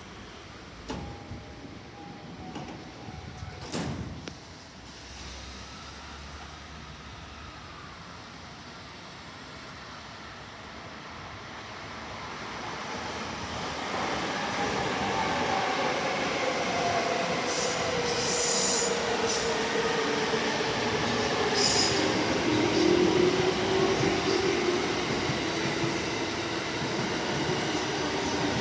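Commuter electric train pulling out from the platform after its doors shut with a knock. From about twelve seconds in, the traction motors' whine rises and glides in pitch as the train gathers speed, and wheel and rail noise grows louder.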